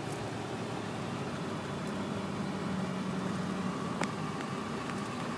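Steady hum inside a moving car's cabin in city traffic, road and engine noise with no sharp events apart from one light click about four seconds in.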